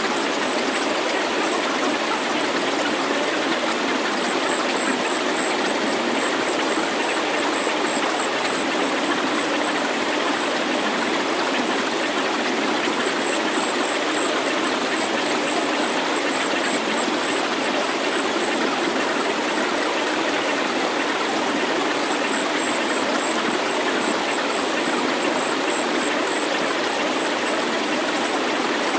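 Synthesized healing sound track of steady rushing noise with very little bass, with a thin high tone pulsing unevenly above it.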